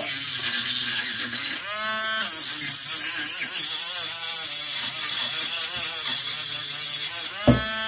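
Dremel Stylo rotary tool spinning a small flap sanding disc against hardwood, a steady high whine and hiss whose pitch wavers up and down as it works. A sharp thump comes near the end.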